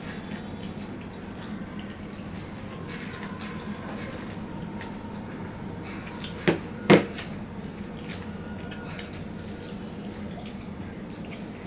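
Eating with the hands: fingers working through fried rice and fried chicken, with small wet clicks and chewing. A little past halfway come two sharp knocks close together on the crockery, the loudest sounds.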